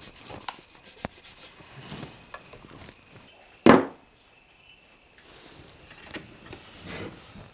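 Brush scrubbing leftover wood-glue squeeze-out off a freshly glued and screwed wooden joint: light rubbing and scraping on wood with scattered small clicks, and one louder sudden sound about halfway through.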